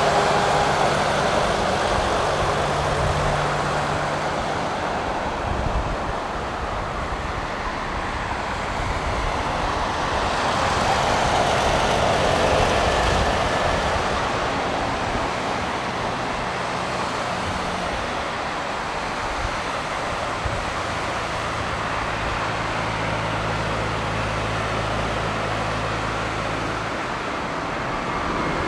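Distant roar of an Airbus A320-232's two IAE V2500 turbofan engines during a takeoff, a steady rushing noise that swells a little about twelve seconds in and then eases.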